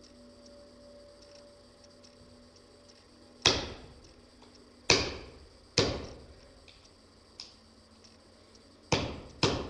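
Hammer blows on a screwdriver driven into a car battery: five sharp strikes at an uneven pace, each with a short ringing decay, the first about three and a half seconds in, with one much lighter tap among them.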